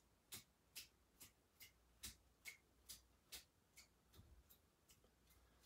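Faint ticks, about two a second, from a wet soft-bristle shoe-cleaning brush being shaken off with quick wrist flicks to throw off excess cleaning solution. The ticks grow weaker and stop about four seconds in.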